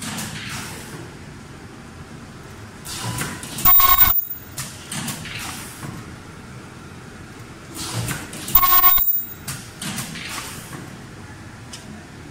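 Strip tube filling and sealing machine running its cycle. A loud burst with a steady tone in it sounds about every five seconds, twice here, over a steady machine hum.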